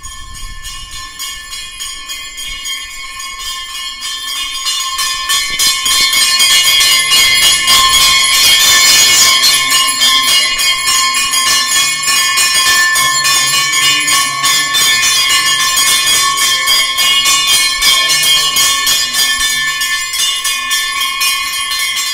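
Hanging brass temple bells rung continuously by several worshippers during worship at the shrine, a dense clanging with a steady ringing tone. It grows louder over the first several seconds, then stays loud.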